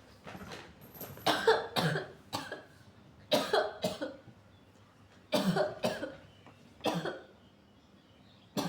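A woman coughing over and over in short sharp bursts, grouped in twos and threes every second or two: staged coughs put on as a prank.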